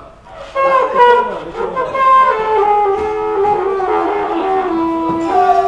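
Trumpets playing a melody: quick notes at first, then longer held notes stepping down in pitch.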